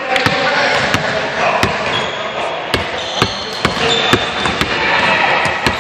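Basketball bouncing on a hardwood gym floor, irregular thuds about a dozen times as players dribble and move the ball.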